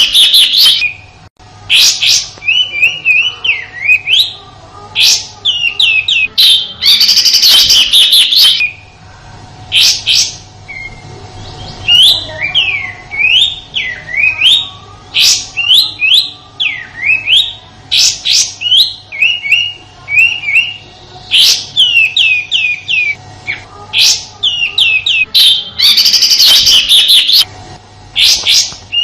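Kapas tembak calling in a rapid string of shrill chirps and up-and-down whistled notes, broken by harsh, rasping bursts about seven seconds in and again near the end. These are the rough 'tembakan' (shooting) calls. A faint steady low hum runs underneath.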